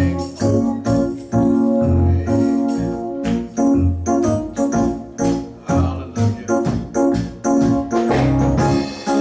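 Organ playing held chords, backed by a drum kit keeping a steady beat.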